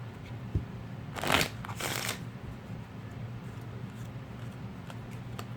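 A deck of Bicycle Magic Carpet playing cards being shuffled: two short riffling bursts about a second in, with a few faint card clicks afterwards, over a low steady hum.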